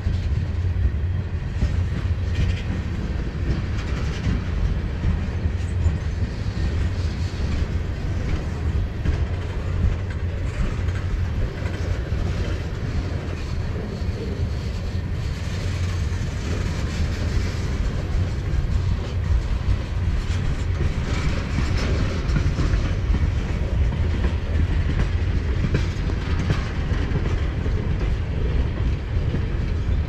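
Freight train rolling along the track: a steady low rumble with clacking of wheels over the rails.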